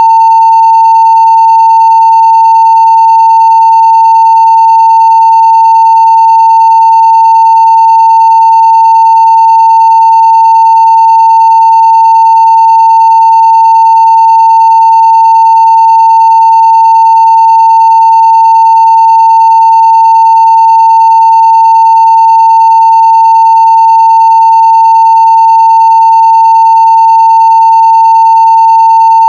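Continuous 900 Hz sine-wave test tone at full-scale level (0 dB), a single steady loud pitch with faint higher overtones.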